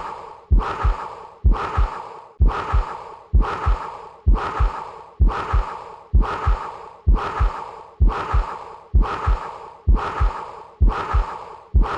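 Stethoscope recording of a continuous vascular murmur with systolic reinforcement, the bruit typical of an arteriovenous fistula. A whooshing hiss swells with each heartbeat, about once a second, then fades but never stops between beats. Each beat opens with a pair of dull low thumps.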